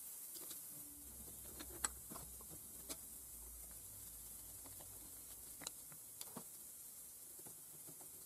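A screwdriver clicking and tapping against the steel body of a small three-jaw chuck: a few faint, scattered clicks, the sharpest about two seconds in.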